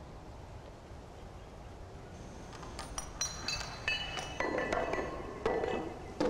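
A row of dominoes of ever-increasing size toppling in a chain reaction, each striking the next. Faint light clinks start about two and a half seconds in, then come louder and lower as the pieces grow, becoming heavier knocks roughly one a second near the end.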